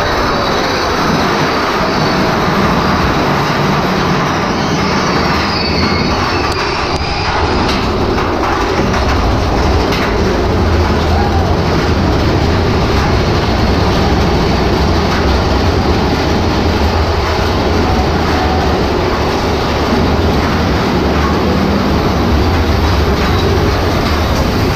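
Thunder Mountain mine-train roller coaster running along its track, heard from on board: a loud, steady rumble and clatter of the train's wheels.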